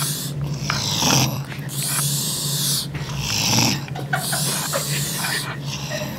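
A man snoring in his sleep, a rasping, hissing breath every second or two over a steady low hum.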